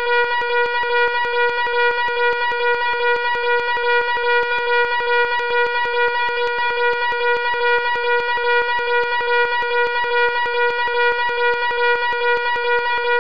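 Fire alarm sounding loudly and continuously: one steady, harsh horn tone with a rapid, even pulse.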